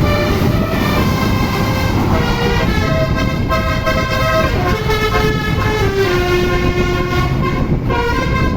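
Basuri-style telolet multi-tone bus horn playing a long melody, its held notes stepping up and down in pitch, over the low rumble of the running bus.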